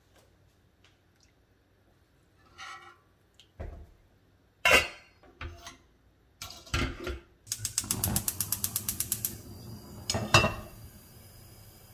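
Metal pots clanking on a gas stove's grates, then about two seconds of rapid, even ticking from the burner's electric igniter as it is lit, after which the flame catches with a steady low hiss. Another sharp clank follows just after.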